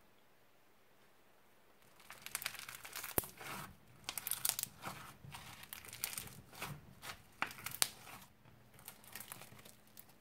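Crunchy slime packed with beads and tiny plastic cups and bags being squeezed and pressed in the hands: a dense, irregular run of crackles and pops that starts about two seconds in and thins out near the end.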